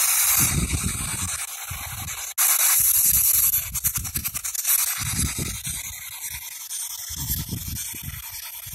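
P-SB7 spirit box sweeping through radio frequencies: a continuous hiss of static chopped into short, irregular bursts, with a brief dropout about two and a half seconds in.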